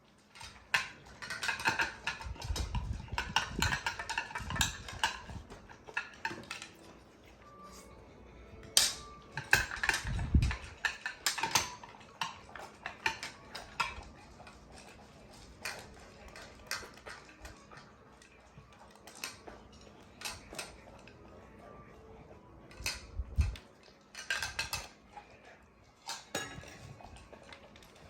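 Chocolate Labrador retriever eating from a dish: bunches of clinks and clatter as its muzzle and tongue knock the dish, with quieter stretches in between.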